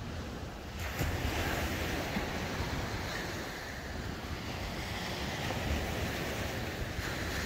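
Steady wash of surf on the beach, mixed with wind on the microphone.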